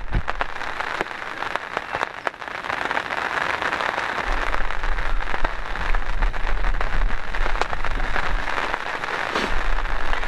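Steady rain falling, a dense hiss with many sharp individual drop hits close to the microphone, over a low rumble.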